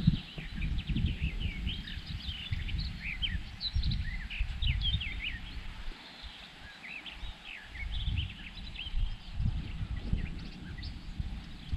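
Several birds singing, a steady stream of short, quick chirps and trills, over a low, uneven rumble.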